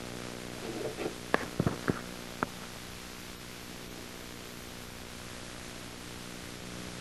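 Steady electrical hum over hiss, with a few short clicks between about one and two and a half seconds in.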